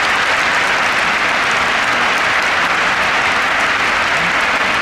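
Large stadium crowd applauding steadily and loudly.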